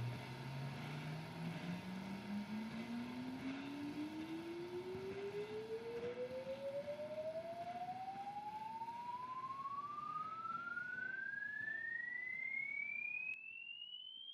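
A single pure electronic tone sweeping steadily upward in pitch, from a low hum to a high whistle. Under it runs a steady noisy hiss that cuts off suddenly near the end.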